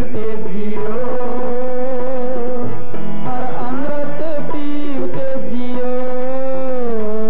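Gurbani shabad kirtan music: a long-held melodic line that wavers and glides between notes, over tabla.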